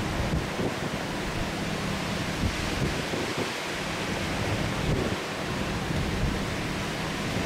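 Steady rushing noise of a thunderstorm: heavy rain and wind, with no distinct thunderclap.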